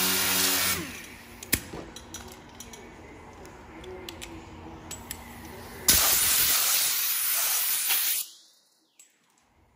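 Air-powered DA sander running on a car fender, feather-edging the grinder scratches with 80 grit, stops about a second in and is followed by light clicks. About six seconds in, a compressed-air blow gun hisses steadily for about two seconds, blowing sanding dust off the bare metal, then cuts off suddenly.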